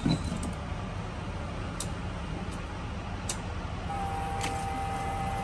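A car failing to crank on a drained battery: no engine turning over, only a couple of faint clicks and, from about four seconds in, a steady tone, over a low steady rumble.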